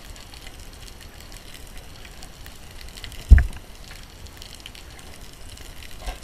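Small waves sloshing against a camera at the sea surface, with one loud low thump about three seconds in as the water slaps the housing.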